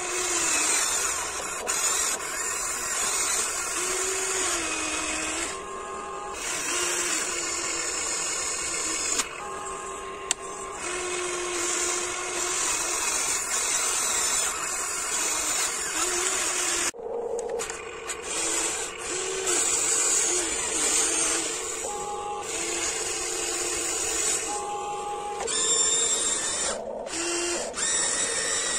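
Huina 1594 RC excavator's small electric motors and gearboxes whining as it digs. The pitch rises and falls and cuts out briefly several times as different movements start and stop.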